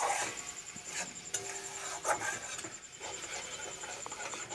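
Flat metal spatula scraping and stirring a thick spice paste around a kadai, in irregular strokes, the clearest near the start and about one and two seconds in.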